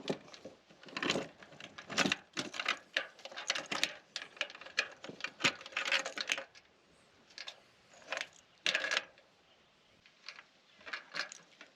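Irregular light clicks and rattles of a spring-loaded grabber tool and wiring working in the roof light opening, with short pauses between bursts.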